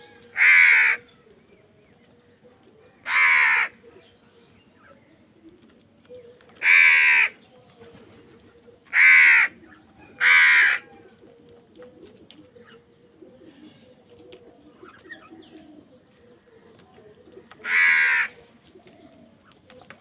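House crows cawing: six loud caws, each about half a second long, coming at irregular intervals with a long gap before the last one.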